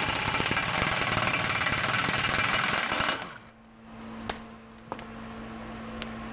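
Pneumatic impact wrench hammering a 30 mm front axle nut loose, running for about three seconds and then stopping suddenly as the nut comes off. Two sharp clicks follow about a second apart.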